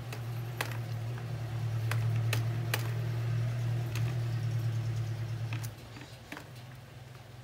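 Sewing thread being wound by hand around a small metal fitting, giving scattered light ticks and rustles, over a steady low hum that fades out about three quarters of the way through.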